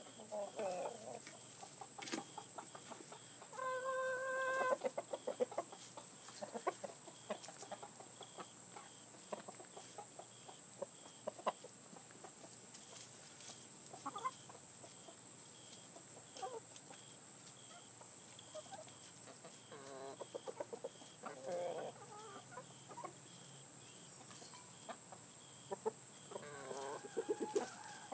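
Flock of domestic chickens, hens and roosters, clucking and calling on and off, with a short, steady, higher-pitched call about four seconds in.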